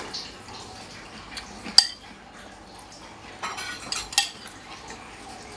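Someone eating noodle soup with a metal spoon: the spoon clinks and scrapes against a ceramic bowl, with one sharp clink about two seconds in, and a burst of slurping and spoon sounds near the end.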